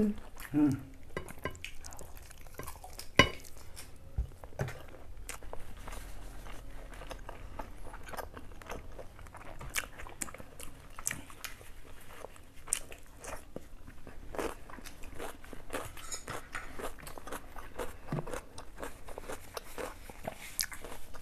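Two people chewing and biting into chicken and spicy instant noodles, with scattered light clicks of forks against plates and one sharper click about three seconds in.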